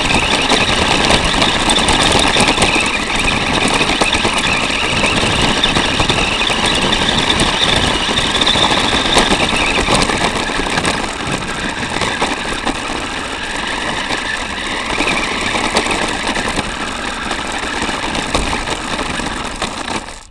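Onboard sound of a small electric 4x4 RC car (Revell Lion chassis under a VW Beetle body shell) driving over beach shingle and sand: the motor and drivetrain run loud and harsh under a constant rattle and clatter of the plastic body.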